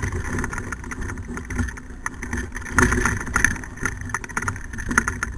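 Dog-sled training kart rolling over rough, rutted dirt behind a running team of malamutes: a steady rumbling rattle of wheels and frame with scattered knocks, and wind buffeting the microphone.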